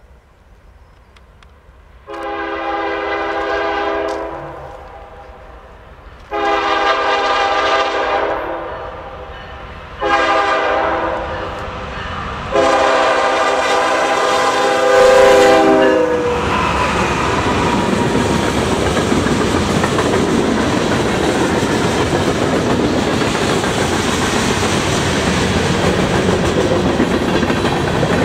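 CN freight locomotive's air horn sounding the grade-crossing signal: two long blasts, a short one, then a long one. The horn gives way to the steady noise of the locomotives and freight cars rolling past on the rails.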